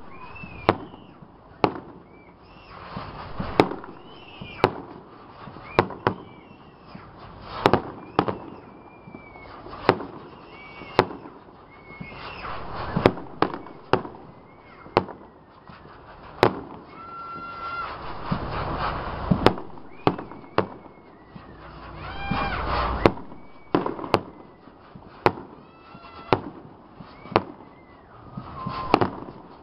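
Aerial fireworks display: shells bursting in a steady run of sharp bangs, often about one a second, with short high whistles and crackle between the bursts.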